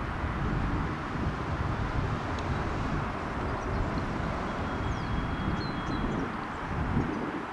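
Steady low rumble of distant vehicle noise, with a faint thin high tone in the middle.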